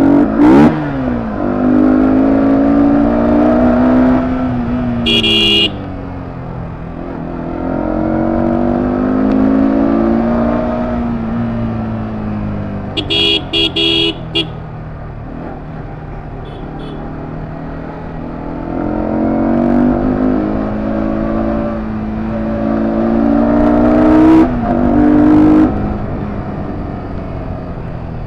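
Sport motorcycle engine pulling through traffic, its pitch climbing in long rises as it accelerates and dropping back as the throttle eases. A horn gives one short honk about five seconds in and a quick burst of short beeps around thirteen to fourteen seconds. There are a few sharp knocks, near the start and twice near the end.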